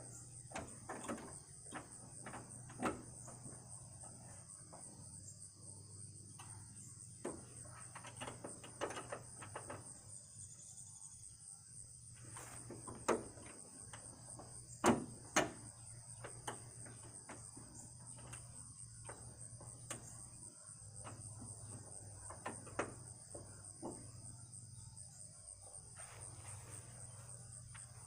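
Crickets chirring steadily, a high even trill, with scattered light clicks and knocks of hand work on parts, a few sharper knocks about halfway through.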